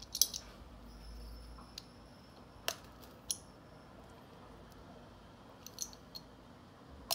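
Sharp little clicks and taps, a few seconds apart, as plastic pneumatic tubing is pushed into and worked in a push-to-connect fitting on a metal air blow gun.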